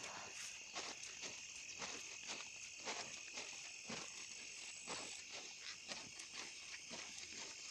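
Steady high-pitched insect chorus, with footsteps about twice a second of someone walking.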